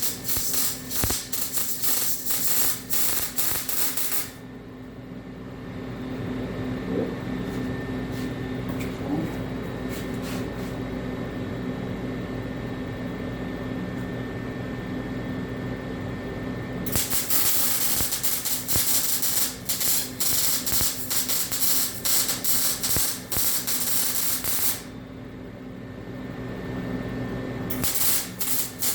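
MIG welder arc crackling and sizzling as a bead is laid on steel tubing, in three runs: one at the start, a longer one from about halfway, and another starting just before the end. Between the runs only a steady low hum remains.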